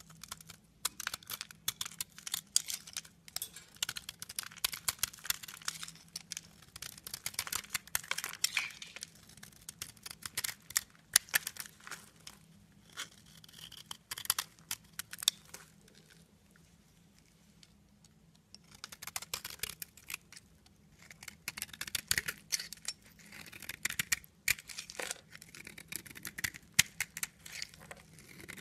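A craft-knife blade carving a bar of soap with a glitter-crusted top, giving a dense, crisp crackling crunch as shavings and chunks break away. The cutting goes sparse and quiet for a few seconds past the middle, then picks up again.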